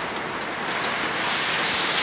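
Heavy rain pouring down in a steady rushing hiss, swelling a little louder near the end.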